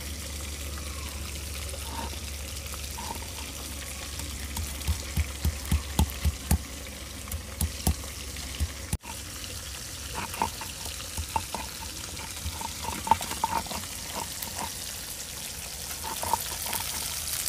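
A stone roller crushing and grinding garlic on a flat grinding stone (sil-nora): a run of sharp knocks about three a second midway, then more scattered knocks, over a steady hiss.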